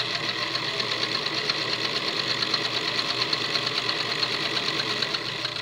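Electric household sewing machine stitching a seam at a steady speed: motor hum under a fast, even clatter of the needle. It slows off right at the end.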